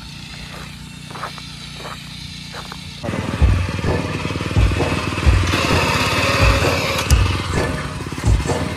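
Small Honda petrol engine of a walk-behind paddy reaper running steadily, faint at first and then loud and close from about three seconds in, with irregular low thumps.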